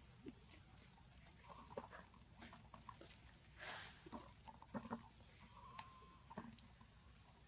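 Faint crackling and rustling of dry leaves as a small monkey walks and scampers over leaf litter, with a steady high-pitched tone in the background.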